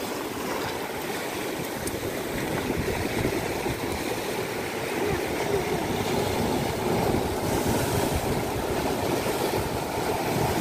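Sea surf breaking and washing over rocks at the shoreline, a steady rushing that swells louder in the second half.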